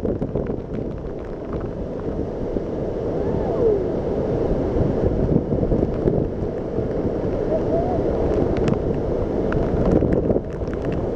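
Steady roar of a large waterfall, a deep continuous rush of falling and churning water, with wind and spray buffeting the microphone.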